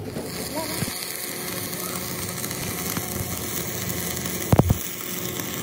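Electric arc welding on a steel wheel rim: the arc strikes and then runs with a steady crackling sizzle. A short low thump comes about four and a half seconds in.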